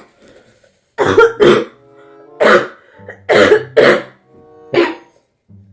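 A woman coughing on purpose, six short hard coughs, some in quick pairs, over background music with steady held notes.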